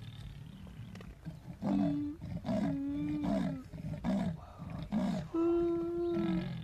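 Leopard's sawing call: about six rough, rasping strokes, one roughly every second, with three longer held, tone-like notes among them.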